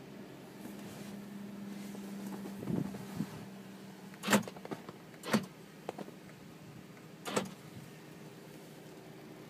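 A low steady hum for a couple of seconds, then a series of sharp clicks and knocks, the loudest about four seconds in.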